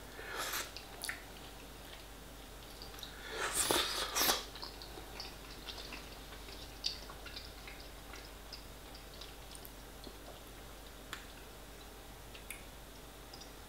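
Close-miked mouth sounds of a man eating a hot spoonful of pepperoni-pizza pie filling: soft chewing and wet, squishy mouth noises with a few faint clicks, and a louder rush of noise around four seconds in.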